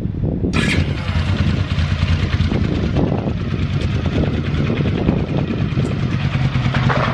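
GL700 Interstate motorcycle engine catching on the electric starter and running, with a short burst of noise just after it fires, then settling into a steady idle about six seconds in.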